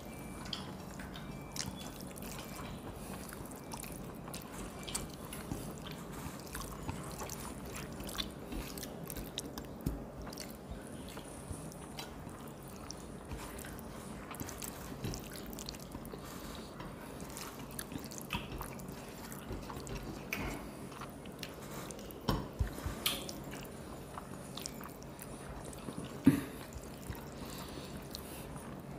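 People eating rice with their hands: soft chewing and mouth sounds, fingers working food on plates, and scattered small clicks, with a few louder knocks about twenty-two and twenty-six seconds in, over a steady low hum.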